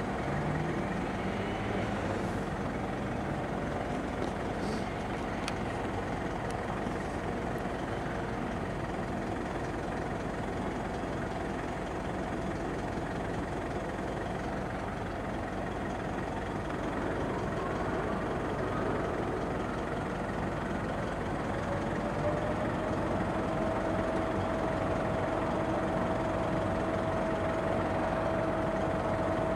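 Truck engine running steadily to drive the hydraulics of a truck-mounted 14-metre folding aerial work platform as the boom moves. There is a steady hum that rises a little in pitch a little past two-thirds of the way through.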